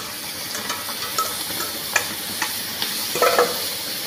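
Yogurt sizzling as it hits the hot oil and fried spice masala in a metal kadai, with a fork scraping and clicking lightly against the pan as it is stirred in. Steady hiss, with a brief louder scrape about three seconds in.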